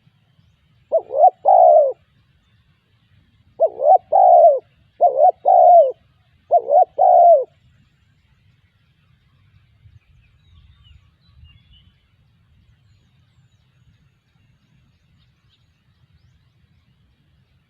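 Spotted dove cooing: one two-note coo about a second in, then three more two-note coos in a row from about 3.5 to 7.5 seconds.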